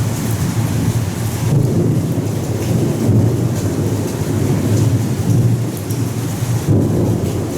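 Torrential rain with thunder rumbling on and off, a deep rolling rumble that swells and eases several times over the steady hiss of the downpour.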